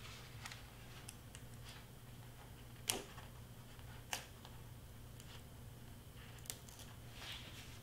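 Faint handling of cardstock pieces on a work surface: light rustles and three sharp taps, the first about three seconds in, the others near four and six and a half seconds, over a faint steady hum.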